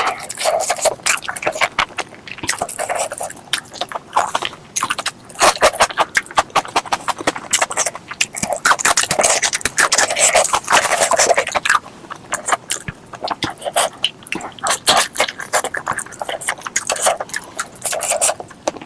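Close-miked mukbang eating sounds: wet chewing and lip-smacking on pork leg curry with rice, a dense, uneven run of smacks and clicks.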